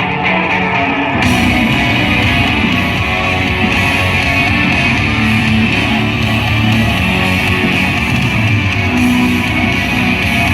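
Loud rock music with guitar, turning fuller and brighter about a second in.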